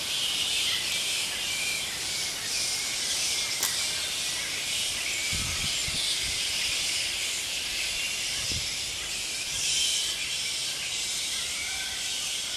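Steady high-pitched outdoor hiss, with a sharp click about three and a half seconds in and two brief low thuds, around five and a half and eight and a half seconds in.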